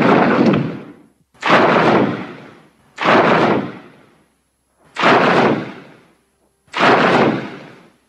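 Monster roar sound effects for Griffon, the winged lion kaiju, built from altered King Kong and Rodan roars. Five short, raspy roars in a row, about one every second and a half to two seconds, each starting abruptly and fading out over about a second.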